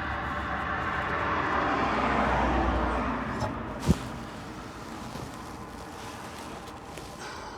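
Rumbling noise of a passing vehicle that swells and then fades over the first three seconds, followed by a single sharp knock about four seconds in.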